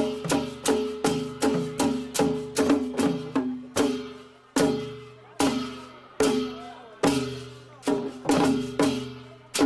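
Traditional Nepali drums beaten with curved sticks in a steady rhythm, each stroke ringing with a low pitched tone that dies away. The strokes come about two or three a second, slow to about one a second in the middle and pick up again near the end.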